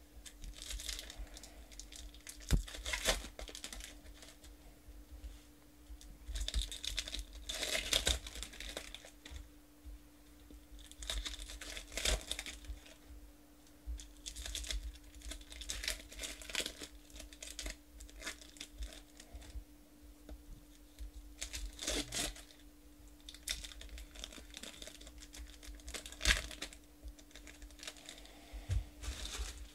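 Foil trading card pack wrappers being torn open and crinkled by hand, in repeated rustling bursts with a few sharp clicks, over a faint steady hum.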